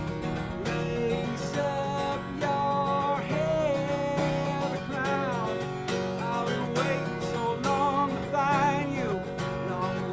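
Acoustic guitar strummed in a steady rhythm, with a sung melody line over it.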